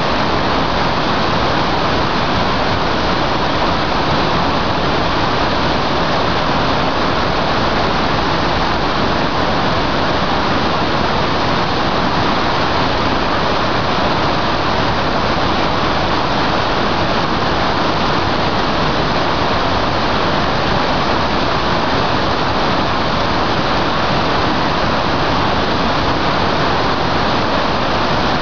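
Iguaçu Falls: a huge waterfall's water crashing down, a steady loud rush of noise that never changes.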